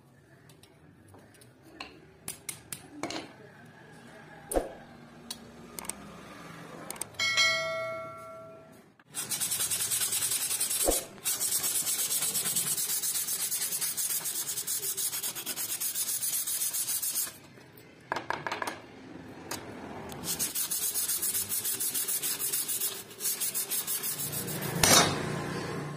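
Sandpaper rubbed by hand over a rusty steel saw blade, a loud, continuous scratchy rasp of quick back-and-forth strokes that stops for a couple of seconds past the middle and then resumes. Before the sanding starts, a few light clicks and one short ringing metal clink.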